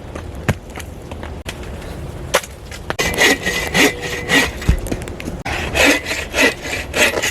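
Hand saw cutting through wood in rhythmic back-and-forth strokes, about two a second, starting about three seconds in and pausing briefly midway, with a faint ringing from the blade. Before that, a few scattered knocks and rustles.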